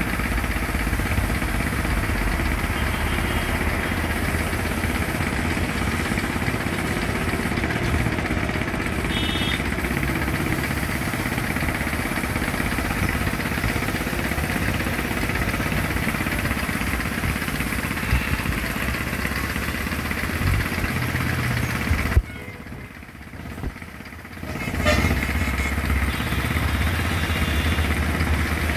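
An engine running steadily with a low rumble. The level drops sharply for about three seconds near the end and then comes back.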